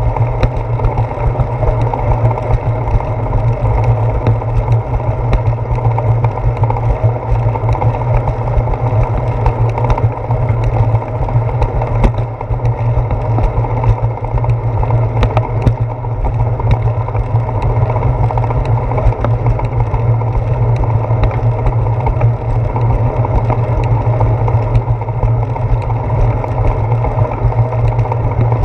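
Steady rumbling ride noise from a bicycle rolling along a concrete path, picked up by a handlebar-mounted GoPro Hero 4: wind and vibration, with scattered small knocks.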